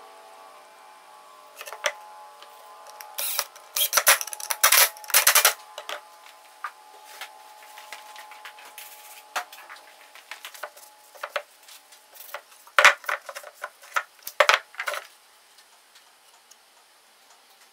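Irregular clicks and light knocks of small parts and tools being handled on a workbench, with a quick flurry about three to five seconds in and another around thirteen to fifteen seconds.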